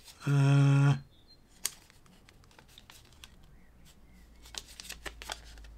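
A man's drawn-out, steady-pitched "hmm" lasting under a second, then a quiet stretch of faint scattered clicks and crinkles as he handles a small clear plastic bag of bicycle parts.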